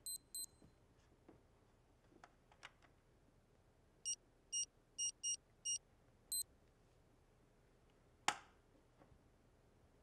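Home security alarm keypad beeping: two short high beeps at the start, then six beeps a few tenths of a second apart as keys are pressed, like a code being entered. About eight seconds in comes a single sharp click, the loudest sound.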